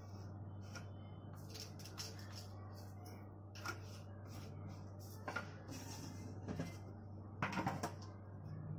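Scattered soft clicks and clinks of steel kitchen containers being handled, with a cluster of knocks near the end as a round steel spice box is set down and opened. A steady low hum runs underneath.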